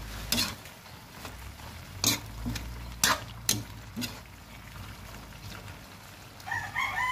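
A metal spatula scraping and knocking against a metal wok as squash and moringa leaves are stirred over a faint simmer, giving a few sharp clinks spread over the first four seconds. Near the end a rooster starts crowing.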